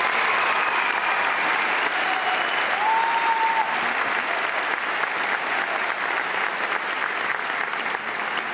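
A large audience applauding, with a couple of short, high calls over the clapping in the first few seconds.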